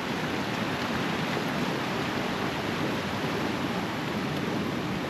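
Steady rushing of a fast river's water, an even, unbroken noise.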